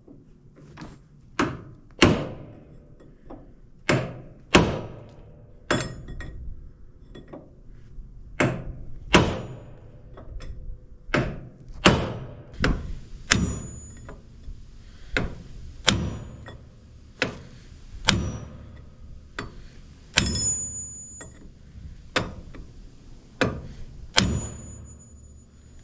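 Sledgehammer blows on a steel bar driven against the seized gland nut of a Komatsu D41A bulldozer's hydraulic cylinder. The strikes come in a steady run of sharp metal-on-metal hits, about one a second, a few ringing briefly. The nut does not break loose.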